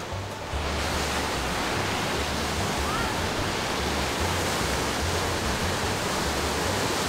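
River water rushing through whitewater rapids, a steady roar that grows louder about half a second in and then holds.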